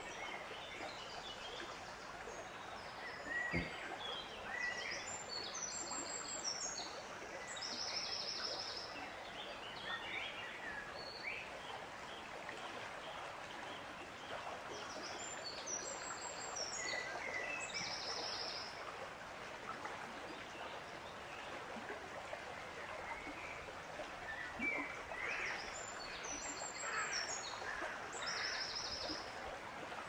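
Outdoor nature ambience: a steady rush of running water, with a bird singing the same short, high song phrase three times, about ten seconds apart, amid other faint bird calls. A single sharp click comes about three and a half seconds in.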